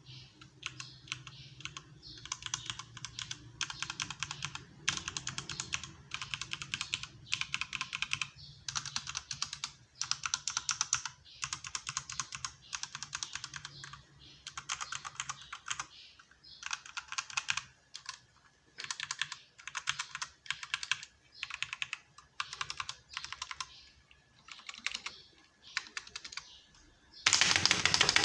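Typing on an EK87 mechanical keyboard with red linear switches, in bursts of rapid key clacks with short pauses. The spacebar sounds clicky like a blue switch. A much louder burst of noise starts near the end.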